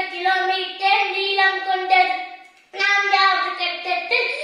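A young boy's high voice reciting in Tamil in a sing-song, drawn-out delivery, with one short pause a little past halfway.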